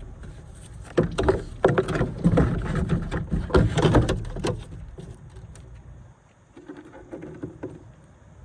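A run of clunks and scraping knocks from hard objects being handled, loudest and densest in the first few seconds, then a few softer knocks near the end.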